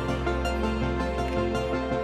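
Background music with held notes over a steady low bass line.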